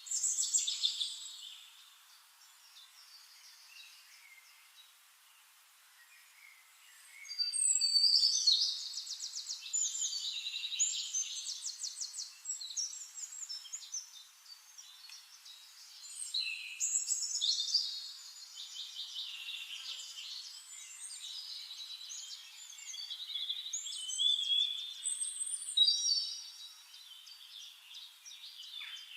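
Songbirds singing in phrases of quick, high trills and chirps, in bursts about a second in, from about 7 to 13 seconds, around 17 to 20 seconds and again near 24 to 26 seconds, with a quieter stretch between.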